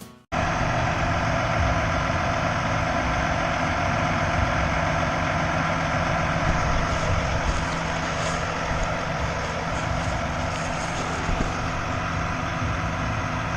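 Farm tractor engine running at a steady speed. It cuts in abruptly right at the start.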